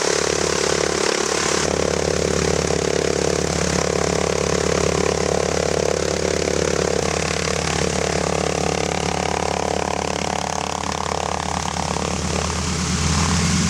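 An engine running steadily, its note changing about twelve seconds in.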